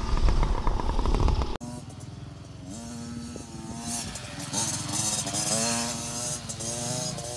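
Kids' mini dirt bike engine running loud and close for about a second and a half, then cutting off abruptly. After that, a small dirt bike engine farther off revs up and down over and over as it is ridden over the track's bumps and jumps.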